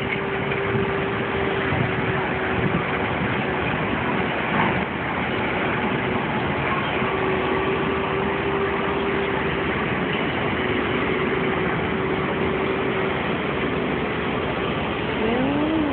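Front-end loader's diesel engine running steadily: a constant hum over a dense noise. A short rising tone comes in near the end.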